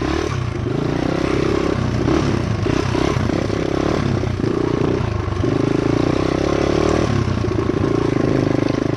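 Dirt bike engine running, its note rising and falling in steps as the throttle is opened and eased off.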